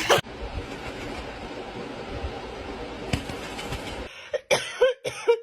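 Parrot mimicking a cough: three short coughs in quick succession near the end, after a few seconds of steady hiss.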